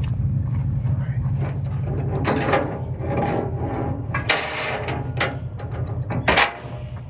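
An engine idling steadily with a low pulsing rumble, which drops away about four seconds in; a few sharp knocks and clatters, the loudest near the end.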